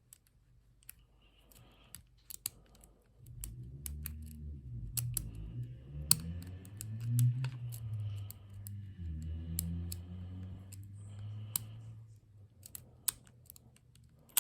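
Lock pick and tension tool clicking and scraping inside a Lockwood 234 padlock's pin tumblers, with sharp, irregular clicks as the back pins are worked. A low, wavering hum runs through the middle of the stretch.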